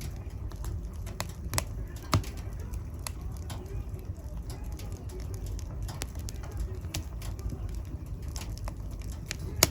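Fire burning in a fireplace: a steady low rumble with irregular crackles and sharp pops, the loudest pop near the end.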